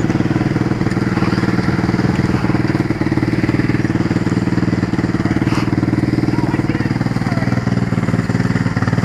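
Dirt bike engine running at a steady, low engine speed, with no revving.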